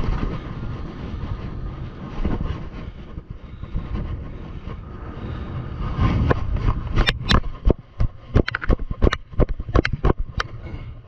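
Wind buffeting the microphone over the surf, then from about six seconds an irregular run of sharp clicks and knocks, several a second.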